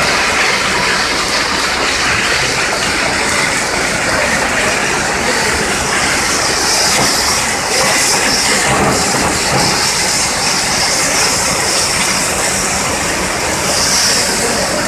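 Pyrotechnic spark fountains firing, a steady loud hiss with crackle that swells slightly a few times.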